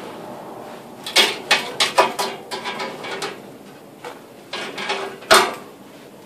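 Fabric dust-collector filter bag being handled: rustling and flapping of the cloth, with a quick run of sharp rustles about a second in and one loud sharp knock near the end.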